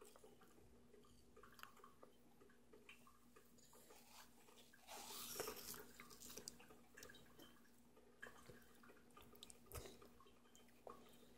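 Faint sounds of a toddler biting and chewing a Granny Smith apple: scattered soft clicks, a little louder about five seconds in.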